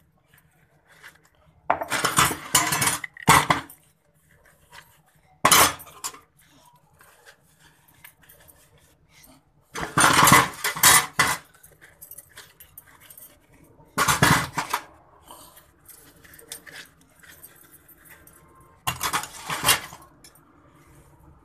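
Stainless-steel spoons, strainers and a ladle clattering against each other and the steel sink as they are washed by hand, in about five short bursts with quiet between.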